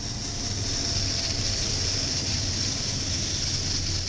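BNSF diesel-electric locomotives hauling a double-stack intermodal freight train pass close by at speed. Their engines make a steady low drone over the rush of wheels on rail, which grows louder about a second in.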